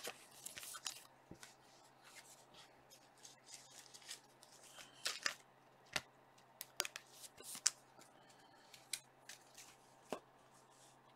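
Trading cards being flipped through by hand: faint, irregular slides and flicks of card against card, a dozen or so quick strokes.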